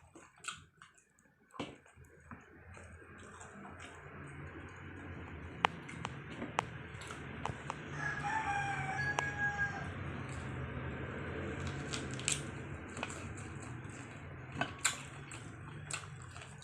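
One drawn-out crowing call about halfway through, over a steady low hum and scattered sharp clicks from eating.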